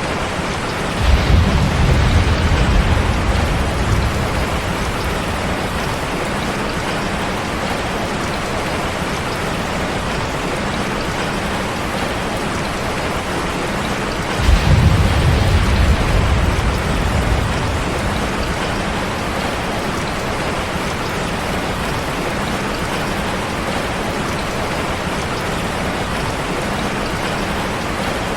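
Heavy rain falling in a steady hiss. Thunder rumbles low twice, about a second in and again about halfway through, each rumble starting suddenly and fading out over a few seconds.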